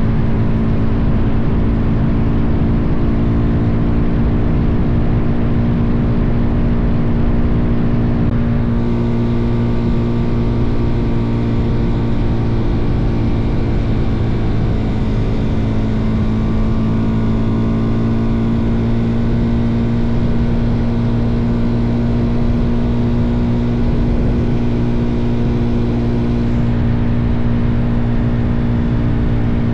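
Suzuki DR-Z400's single-cylinder four-stroke engine running at a steady cruising speed, with heavy wind noise buffeting the microphone.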